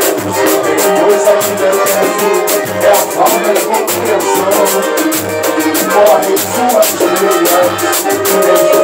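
Live Brazilian party music: a man singing into a microphone over a hand-played drum and other percussion, with deep drum strokes about twice a second and a busy run of sharp percussive strikes above.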